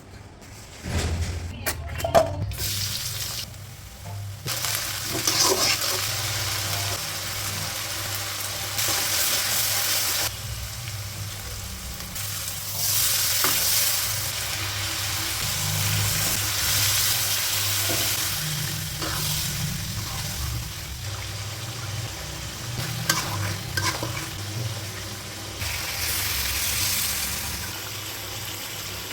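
Duck frying in a pan, sizzling steadily, with a few clicks and scrapes of stirring. The sizzle swells and eases several times.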